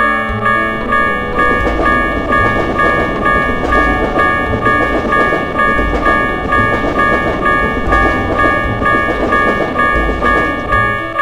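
Japanese railway crossing alarm ringing its repeated two-tone electronic "kan-kan" at an even beat, over the steady rumble of a passing train.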